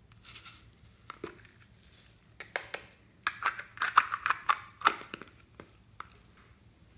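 A red rainbow-shaped hard plastic case being handled and opened: a scratchy rustle, then a quick run of sharp plastic clicks and rattles about halfway through, and a few single clicks near the end.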